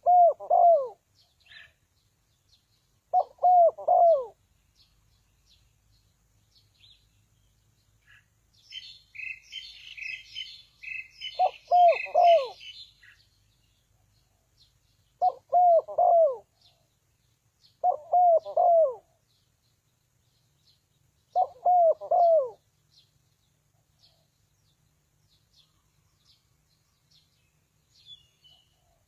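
Spotted dove cooing: six short phrases of three descending coos each, spaced a few seconds apart. A smaller bird twitters for a few seconds in the middle.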